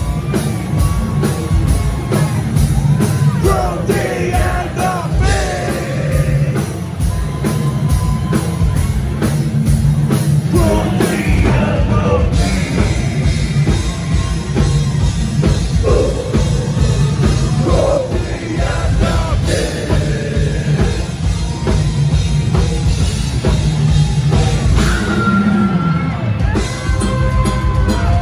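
Extreme metal band playing live: pounding drum kit, distorted guitars and a singer's harsh vocals over the full band.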